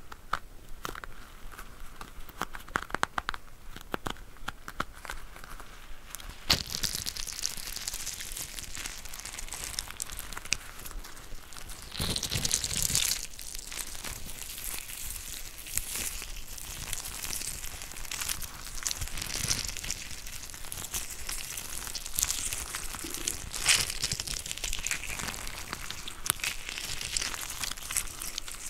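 Mesh stress ball filled with water beads squeezed and kneaded by hand, giving crackling, crinkling squishes and small clicks. The sounds are sparse at first and grow busier and brighter from about six seconds in, with a few louder snaps.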